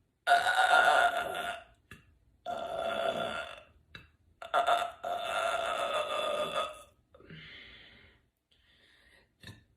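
A woman belching: three long burps in quick succession, each held on a steady pitch, the third lasting over two seconds, then a shorter, quieter burp.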